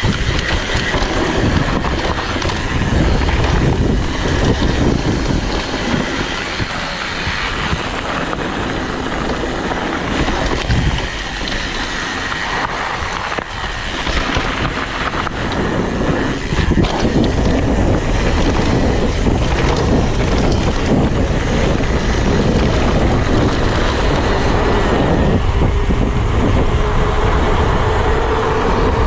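Mountain bike rolling fast down a dirt trail: tyre noise and the bike rattling over bumps, with wind buffeting the camera microphone. A steady low hum comes in near the end.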